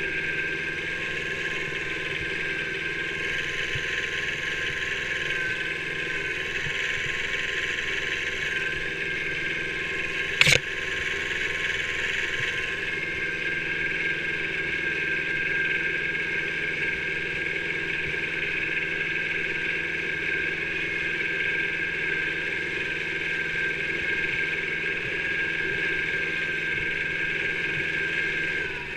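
Kubota B7000 mini tractor's two-cylinder diesel engine running steadily while the tractor drives along a snowy forest track. A single sharp knock sounds about ten seconds in.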